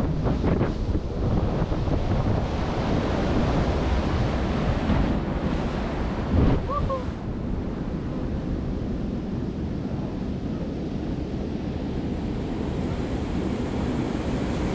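Surf rushing and foaming around the hull of a small fishing boat crossing the surf zone, with wind buffeting the microphone. A single short thump comes about six and a half seconds in.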